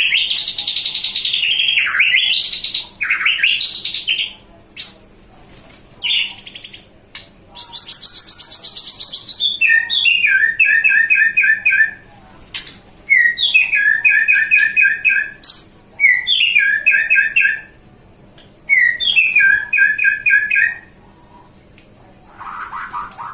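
Songbird singing loudly. It opens with sweeping whistled slurs and a long high whistle, then gives four bouts of rapid repeated notes alternating between two pitches: the burst phrases ('tembakan') that songbird keepers prize.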